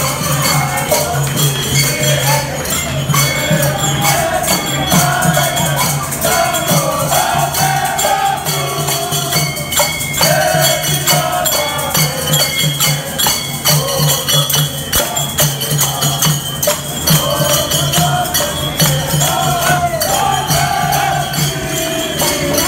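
A group of Fiji supporters singing together in unison while marching, with rhythmic jingling percussion keeping the beat.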